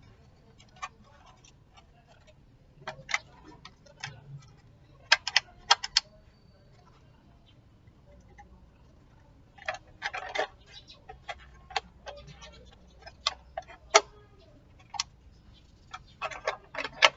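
Irregular clicks and knocks of small hard parts being handled and fitted during electric fan repair, coming in clusters a few seconds apart.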